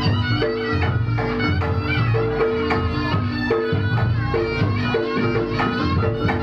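Reog Ponorogo gamelan music: a slompret shawm playing a repeating melody over a steady beat of drums and gongs.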